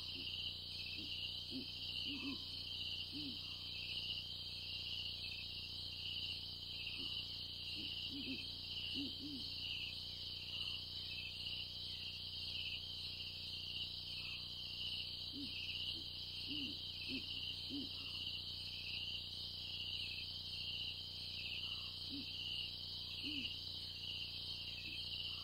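Night-time savanna ambience: a steady, pulsing chorus of crickets with low hooting calls that come in short groups of two to four every few seconds.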